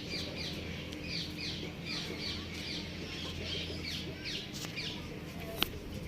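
Birds chirping in quick runs of short, high, downward-sweeping notes, several a second, with brief pauses, over a steady low hum. A single sharp click about five and a half seconds in.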